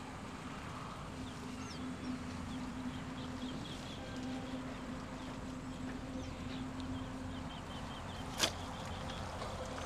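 Quiet outdoor ambience at a weedy pond: faint, scattered high chirping over a steady low hum, with one sharp click about eight and a half seconds in.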